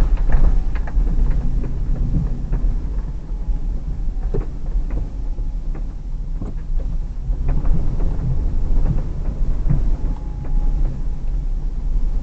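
Hyundai Terracan's 3.5 V6 running at low speed with tyres rolling over a snowy, rutted track, heard inside the cabin as a steady low rumble. Frequent short knocks and rattles come through as the vehicle rides over the bumpy ground.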